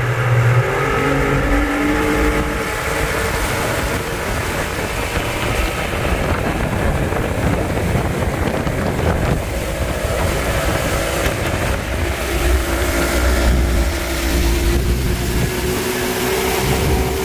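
Small outboard motor running steadily at speed, driving a skiff along, with the rush and splash of its wake.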